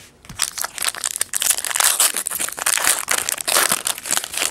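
Foil wrapper of a 2011-12 Upper Deck SP Authentic basketball trading card pack being torn open and crinkled by hand. It makes a dense, rapid crackle that starts just after the beginning and goes on for about four seconds.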